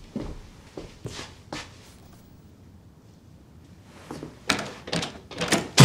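Footsteps on a hard floor, then, after a short pause, a house door being unlocked and opened: a quick run of handle and latch clicks and knocks, the loudest a thunk at the end.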